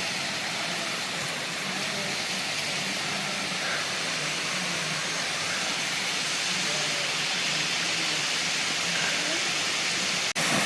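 Creek water rushing steadily, an even hiss of flowing water, with a brief dropout near the end.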